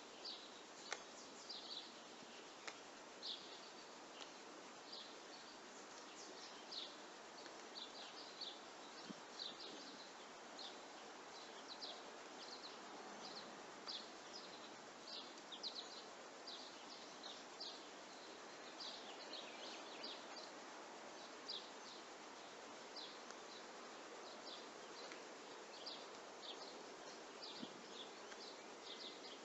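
Faint birds chirping, many short sharp chirps at irregular intervals over a steady outdoor background hiss.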